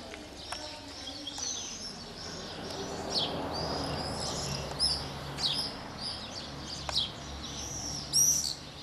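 Small birds chirping repeatedly outdoors, many short falling chirps, with a burst of louder chirps near the end. A soft rushing noise swells and fades between about three and five seconds in.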